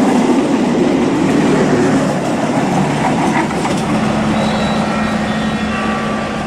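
A train running on its track: a dense, steady rumble and rattle, with faint thin high tones coming in during the second half.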